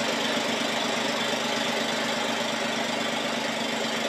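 BMW engine running steadily on an automated test stand.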